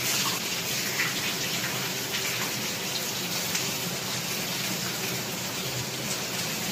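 Fish bones and fish head sizzling steadily as they fry in oil in a stainless steel frying pan.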